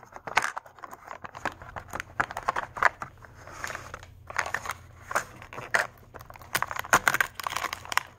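Irregular crinkling, crackling and tearing of plastic packaging with scattered clicks, as a plastic Mini Brands capsule ball and its wrapping are handled and opened.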